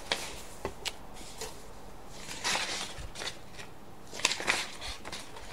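Faint handling noises: soft rustling with a few light clicks, in two short spells about two and a half and four and a half seconds in.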